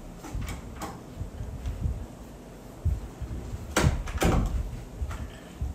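Handling noise from a plastic artificial blossom branch held and turned in the hands: soft low bumps throughout, with two sharp crackling clicks close together about four seconds in.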